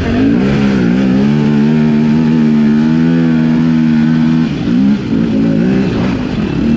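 Yamaha YFZ450 sport quad's single-cylinder four-stroke engine under throttle. It rises in pitch as it accelerates, holds a steady note for about three seconds, then eases off and revs up again in short stabs near the end.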